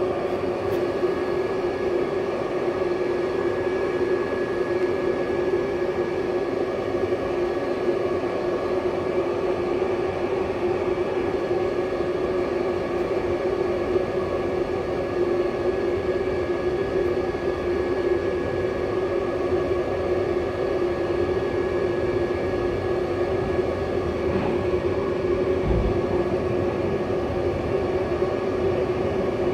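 Steady drone inside an intercity passenger coach as the train moves slowly, a constant low hum with a thin whine above it. A single low knock sounds near the end.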